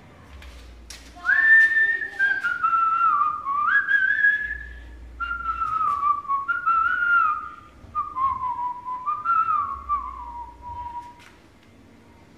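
A person whistling a tune: a string of held notes that step and slide between them, drifting mostly downward in pitch, starting about a second in and stopping about a second before the end.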